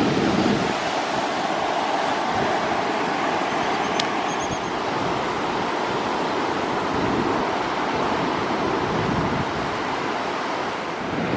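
Gulf surf washing onto the beach as a steady, even rush, with wind on the microphone. One faint click about four seconds in.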